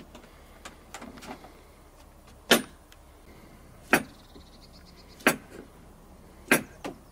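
Kitchen food preparation: four sharp knocks, about one every second and a half, with a few lighter taps between them.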